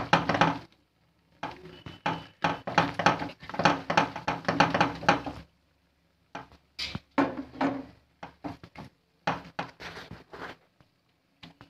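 Wet hand patting and smoothing thick palm batter in a nonstick frying pan: a dense run of soft slaps and squelches, then a second or so of quiet, then separate quicker pats.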